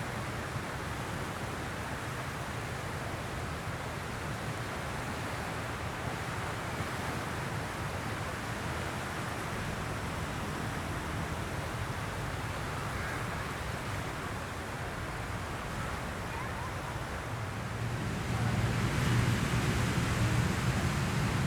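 Surf washing onto a sandy beach as a steady hiss and wash, growing louder with a heavier low rumble near the end.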